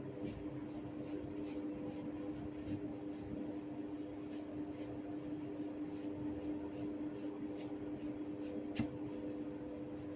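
Hair cracking: fingers tugging strands of hair, making a run of soft, high crackles several times a second, with one sharper snap near the end. A steady low hum runs underneath.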